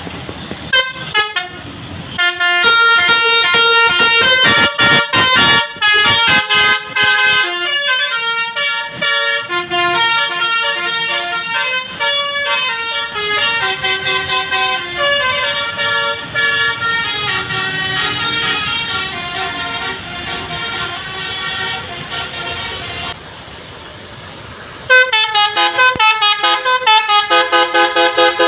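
Bus 'telolet basuri' musical air horn playing a fast melody of short stepped notes. It breaks off about 23 seconds in, and another horn melody starts about two seconds later.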